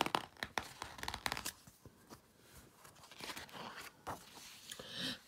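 Paper rustling and crinkling as a picture book's page is turned, with a quick run of small clicks in the first second and a half, then fainter rustling.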